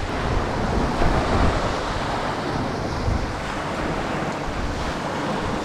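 Small waves breaking on the shore in a steady wash of surf, with wind rumbling on the microphone.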